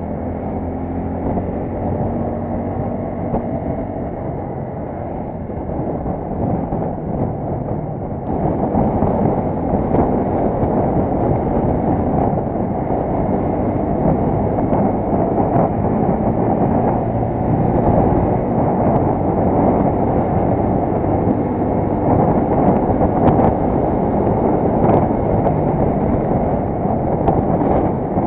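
TVS Apache motorcycle's single-cylinder engine running under way, heard from the rider's seat with wind rushing over the microphone. The engine note shifts in pitch, and the whole sound grows louder about eight seconds in.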